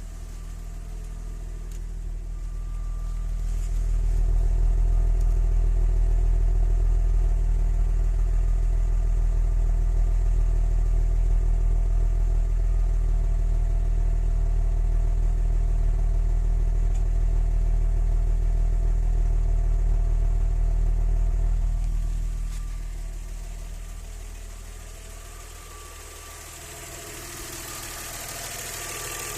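Audi 100 C4's 2.6-litre V6 (ABC) engine idling at a steady speed, louder through the middle stretch and fading near the end. This is the engine whose knock the owner puts down to hydraulic lifters, spun bearing shells or a connecting rod.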